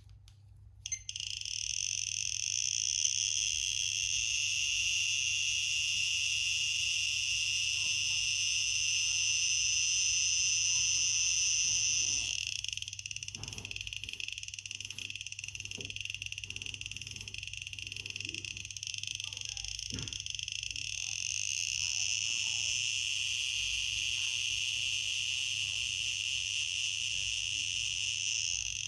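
Handheld radiation detector sounding a steady, high-pitched buzzing alarm over a uraninite specimen, the sign of a high radiation reading. It starts about a second in, eases off somewhat around the middle, then rises again.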